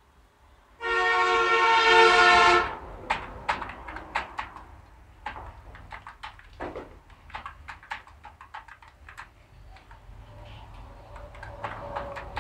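A vehicle horn sounds once, long and loud, for about two seconds just under a second in. Then computer keyboard keys click irregularly as text is typed.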